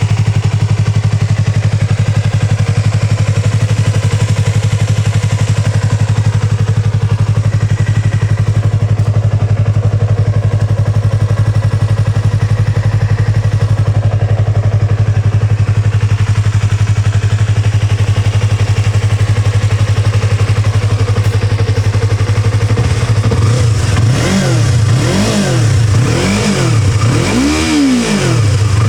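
Yamaha YZF-R25's 250 cc parallel-twin engine with a Yoshimura Cyclone aftermarket silencer, idling steadily. Near the end it is blipped through several quick revs, each rising and falling in pitch.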